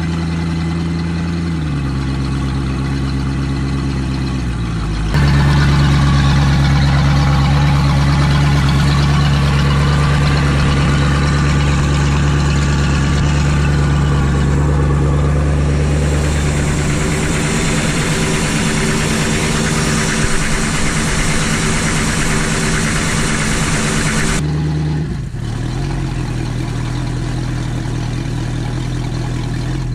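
Ford 302 (5.0 L) V8 of an OMC sterndrive running steadily at idle on the trailer, cooled by a garden hose at the drive after an oil and fuel-filter change. The engine note eases down over the first few seconds, and the sound jumps abruptly louder about five seconds in, then changes again near the end.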